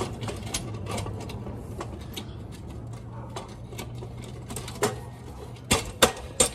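Light, irregular metallic clicking and ticking from hands-on work on a dirt bike's rear wheel, chain and brake hardware, over a steady low hum. A few sharper clicks come near the end.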